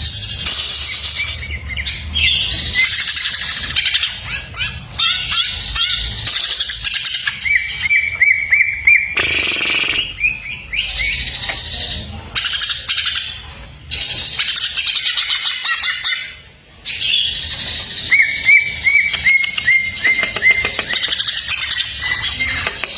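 Greater green leafbird (cucak ijo) singing a long, busy song of varied chirps and trills packed with mimicked phrases, with two runs of quick repeated rising whistles.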